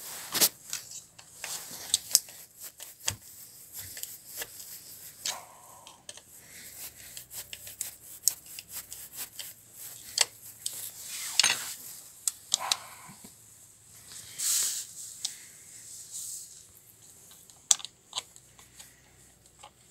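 Hands fitting a shrink-wrapped lithium battery pack into an electric scooter's deck and handling its wiring connectors: scattered sharp clicks and knocks with short bouts of rubbing and rustling.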